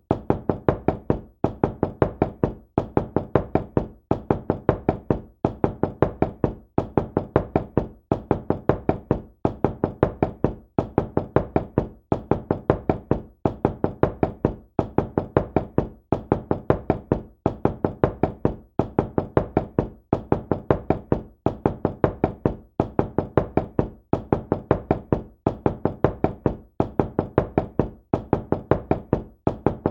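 Knocking on a door in quick clusters of several knocks, each cluster following the last about every second and a half, repeating evenly without a break.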